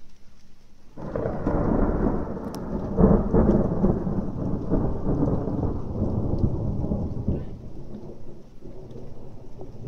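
Thunder: a deep rumble breaks in suddenly about a second in and peaks a couple of seconds later with a sharp crack. It then rolls on and slowly dies away over several seconds.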